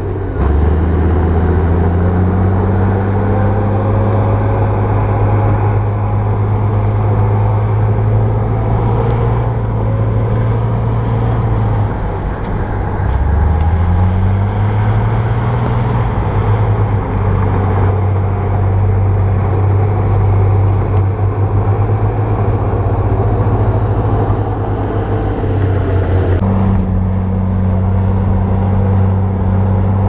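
Heavy diesel engine of earthmoving machinery running hard, its pitch sagging and climbing back twice, just after the start and again about twelve seconds in, as the load on it changes.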